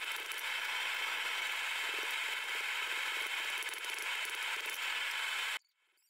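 Steady hiss of workshop background noise with faint light ticks, cutting off suddenly about five and a half seconds in.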